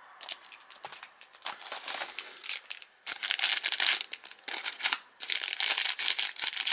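Plastic wrapper of a sealed hockey card pack being torn open and crinkled by hand: irregular crackling that comes in two longer, louder stretches in the second half.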